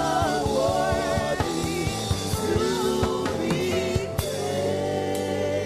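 Live gospel worship music: a band with drum kit and singing voices. The drums drop out about four seconds in, leaving held chords.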